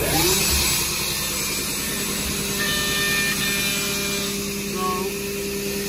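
Fanuc Robodrill CNC mill taking a light high-speed cut in a metal block: a steady spindle and cutting tone, with a strong hiss over the first second or so.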